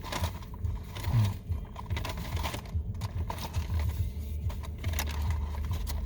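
Eating at close range: chewing and the crackle and rustle of fast-food paper packaging, many small irregular clicks over a steady low hum.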